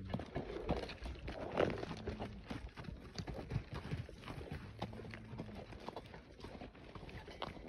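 Horse walking on dry, rocky dirt, its hoofbeats an irregular run of soft clops and crunches. A brief low steady hum comes in twice, near two and five seconds in.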